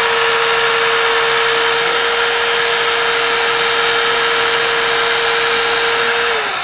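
Hurst eDraulic 3 battery-powered hydraulic spreader running, its motor and pump giving a steady whine with a hiss over it while the arms are feathered slowly closed. Near the end the whine starts to fall in pitch as the motor winds down.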